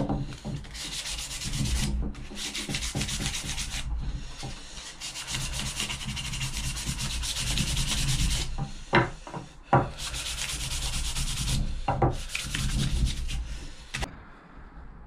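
Hand sanding of a small wooden block with sandpaper: runs of rubbing strokes with short pauses. A few sharp knocks come in the middle, and the sanding stops about a second before the end.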